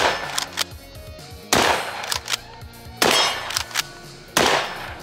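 Stevens 320 Security 12-gauge pump shotgun fired four times, about a second and a half apart, each shot followed quickly by the clack-clack of the pump being racked.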